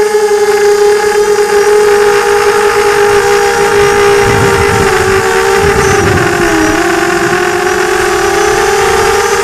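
FPV drone's electric motors and propellers whining steadily, heard from the onboard camera. The pitch dips about two-thirds of the way through as the throttle eases, then climbs back, with low wind buffeting in the middle.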